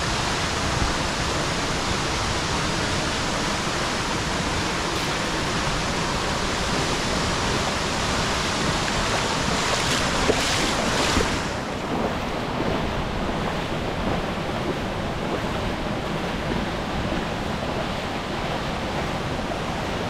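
Steady roar of a tall waterfall, about 60 m high, crashing into its plunge pool. It swells briefly near the middle, then runs a little quieter for the rest.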